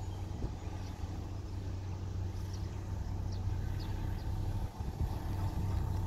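Diesel engine of heavy road-construction machinery running steadily with a low hum, growing gradually louder.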